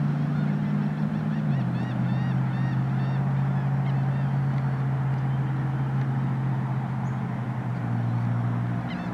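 A boat's engine droning steadily, dropping to a lower pitch about a second and a half in. Over it, birds give a quick run of short high chirps during the first few seconds.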